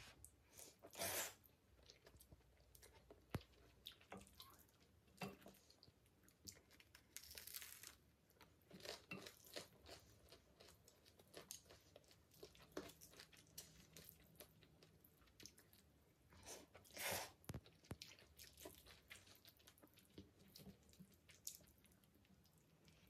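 Faint close-up eating sounds: black bean ramen noodles slurped and chewed, with crunching and small clicks, coming in short irregular bursts.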